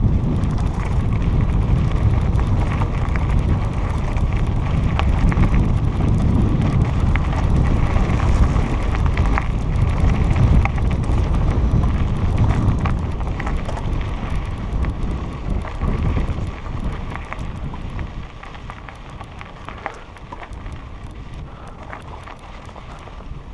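Wind buffeting a helmet-mounted camera's microphone while a mountain bike rolls over a rocky dirt trail, with scattered clicks and rattles from the tyres and bike over stones. It grows quieter from about two-thirds of the way through.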